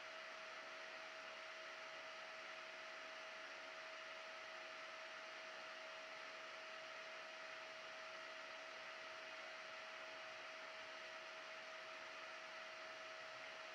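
Faint, steady whir and hiss of the small cooling fan on the Peltier stack's heatsink, with one unchanging hum tone.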